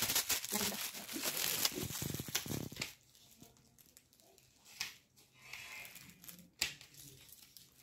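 Metallic foil gift wrap crinkling and tearing as it is pulled off a present, loud for about three seconds, then quieter handling with a couple of short knocks.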